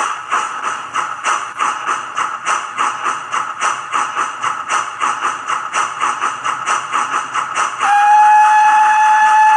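Simulated steam-locomotive sound from a Bachmann BR 9F model running on a rolling road: a quick, even beat of exhaust chuffs. Near the end a long, steady steam whistle starts and is the loudest sound.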